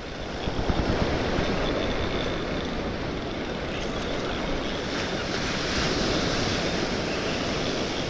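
Surf washing on a beach, with wind rumbling on the microphone; a steady noise with no distinct events.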